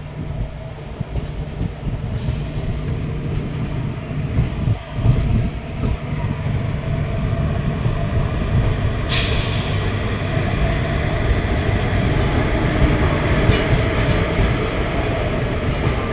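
Indian Railways passenger coach running on the track, heard from on board: a steady low rumble of wheels and coach. About nine seconds in, a sudden loud hiss breaks in and then carries on more faintly.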